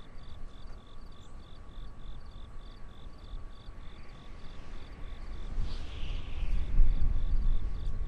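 Outdoor night ambience: a low rumbling noise on the microphone, loudest in the second half, under a steady high-pitched pulsing about two and a half times a second and a faint steady hum.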